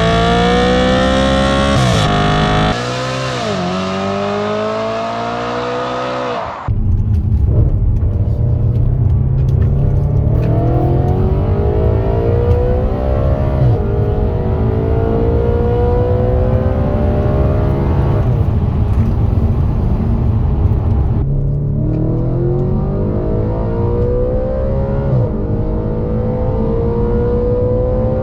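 Audi RS5's naturally aspirated 4.2-litre V8 under hard acceleration, its pitch climbing steadily and dropping briefly at each upshift, over and over through the gears. A sudden change about a third of the way in brings a heavy low rumble under the engine note.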